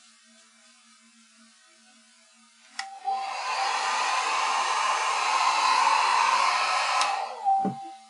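Small handheld hair dryer switched on with a click about three seconds in, blowing steadily for about four seconds to dry the paint on a graphics card, then switched off with a click, its motor whining briefly as it winds down. A low thump follows near the end.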